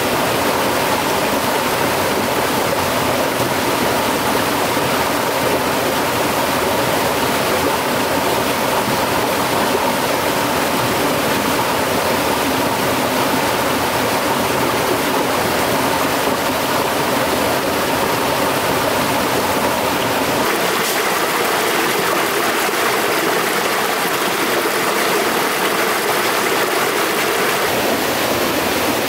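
A stream of running water rushing steadily.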